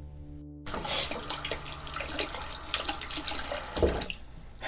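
Kitchen tap running into a sink, with scattered clinks and knocks. It starts suddenly about half a second in and falls away shortly before the end.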